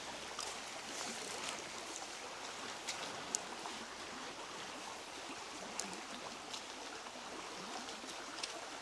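Steady rush of a river's flowing water, with a few faint ticks.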